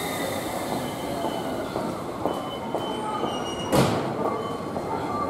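Keio 1000-series electric train creeping to a stop at a platform, its running noise joined by thin, steady brake squeal tones. A sudden short, loud burst comes about four seconds in.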